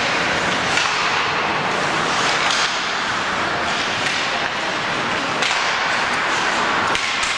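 Ice hockey play in a rink: steady arena noise with several sharp cracks of sticks and puck scattered through it.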